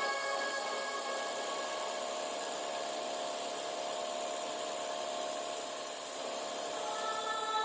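Steady dry rubbing noise under faint background music.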